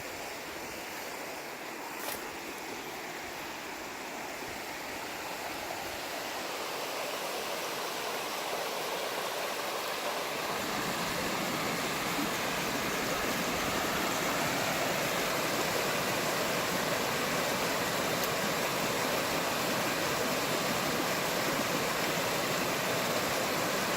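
Small waterfall rushing steadily, growing louder over the first ten seconds or so and then holding steady, with a brief tap about two seconds in.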